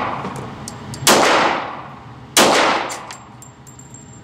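Two pistol shots from a Glock 22, about a second and a half apart, each with a sharp crack and an echoing tail.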